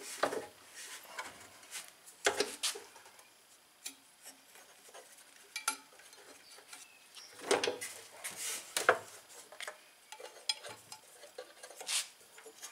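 Scattered metallic clinks and knocks as a small Predator 212 engine is handled and tipped over on a wooden workbench while its ignition coil and wire are worked free. The loudest knocks come about two seconds in, in a cluster around the middle, and near the end.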